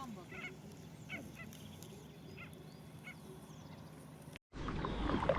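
Birds calling: about six short calls spaced a second or so apart over a faint background hiss. About four seconds in it cuts to a louder stretch of noise.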